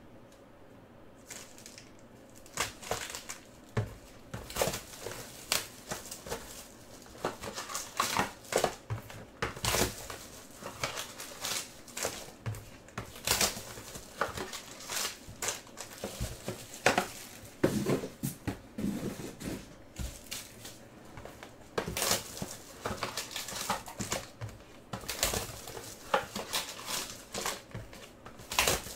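Silver foil baseball card packs being handled and opened: irregular crinkling of the foil wrappers, with quick sharp crackles throughout.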